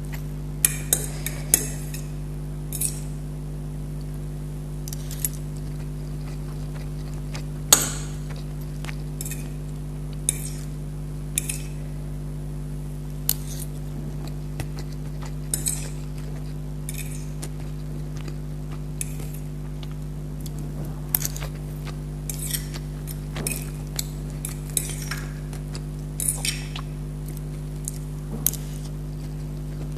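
Close-miked eating: irregular clicks and clinks of a metal spoon against plates, mixed with chewing, with one sharper clink about eight seconds in. A steady low electrical hum runs underneath.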